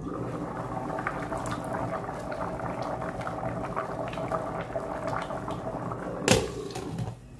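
Pot of African breadfruit (ukwa) seeds bubbling on an electric hob with its lid off, a steady crackle of small bubbles. About six seconds in, the glass pot lid is set back on with a sharp clink, and the bubbling turns quieter under it.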